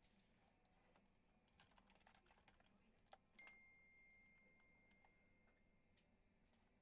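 Faint clicking of typing on a computer keyboard over near silence. About three and a half seconds in, a single high ringing tone sounds and fades away over a couple of seconds.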